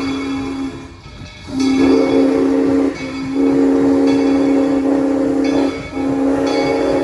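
Train horn sounding a chord of several steady notes in a series of long blasts with short breaks between them. One blast ends just under a second in, and three more follow, each lasting about one and a half to two and a half seconds.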